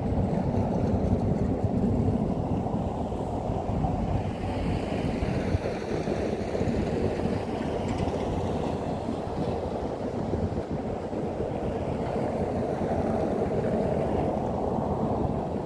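Outdoor street ambience: a steady low rumble of road traffic, with a vehicle passing in the middle.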